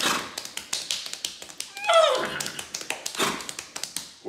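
Rapid hand drumming, fast sharp taps with heavier slaps among them, several a second, played by hand on the lap in imitation of tabla. A short vocal cry falling in pitch sounds about two seconds in.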